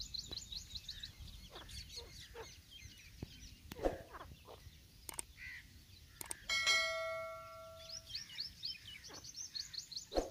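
A rapid series of short, high-pitched bird chirps at the start and again over the last couple of seconds. About six and a half seconds in, a click is followed by a ringing chime lasting over a second: the sound effect of a subscribe-button animation.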